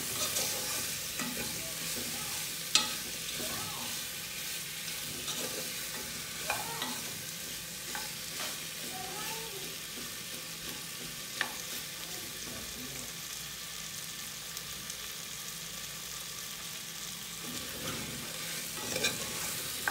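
Seasoned chicken drumettes sizzling as they brown in the oil of a pressure cooker pot, stirred with a spatula that scrapes around the pan, with a few sharp knocks of the spatula against the pot.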